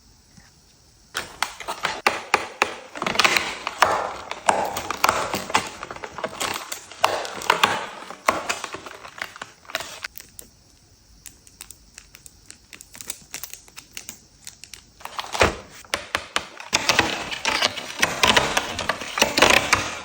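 Cardboard and packaging being handled and torn open: dense crackling, tapping and clicking in two long bursts, with a sharp knock between them.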